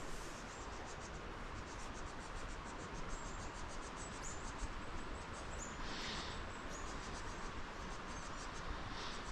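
Steady rush of a flowing mountain stream, with repeated short, high-pitched chirping over it and two brief rustles, about six seconds in and near the end.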